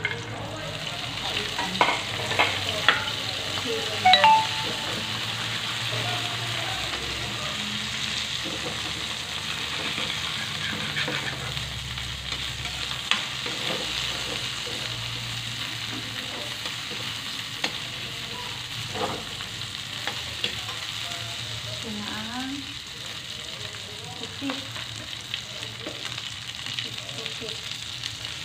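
Sliced onion, garlic and long green chilies sizzling in a steel wok, with a steady hiss. A metal spatula scrapes and clicks against the pan now and then as they are stirred, with the strikes bunched in the first few seconds and again around two-thirds through.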